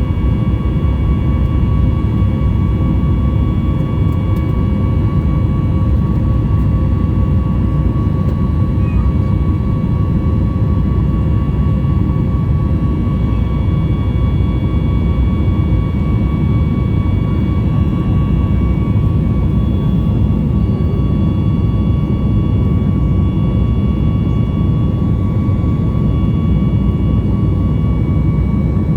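Jet airliner's engines running steadily: a loud, even low rumble with a steady high whine above it.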